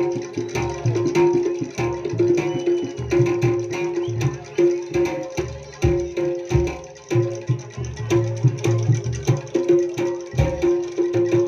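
Jaranan gamelan music for a kuda lumping dance: hand drums beating a fast, dense rhythm over a long-held pitched note.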